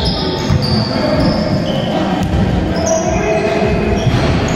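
Basketball game sounds in a large echoing sports hall: a basketball bouncing on the wooden court and short, high squeaks of sneakers on the floor.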